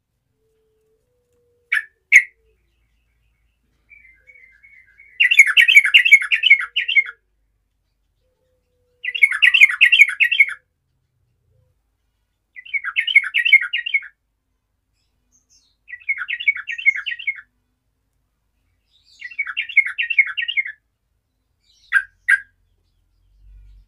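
Yellow-vented bulbul singing: short bubbly phrases of rapid notes, each about a second and a half long, repeated every three to four seconds, with a few short single calls between them.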